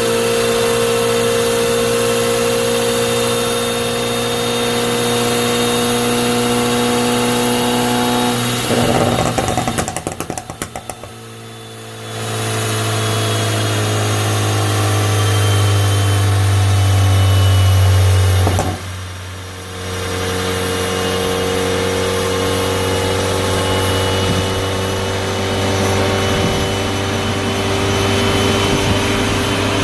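Ford Focus ST Mk3's Stage 3-tuned turbocharged four-cylinder running on a dyno. About nine seconds in comes a quick burst of loud exhaust crackles and pops as the engine comes off load, set up by the tuned map. Then a deep steady drone builds louder for several seconds and cuts off suddenly, and the engine settles back to steady running.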